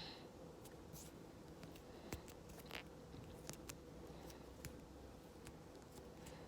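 Near silence: room tone with a low hum and a few faint scattered clicks and taps.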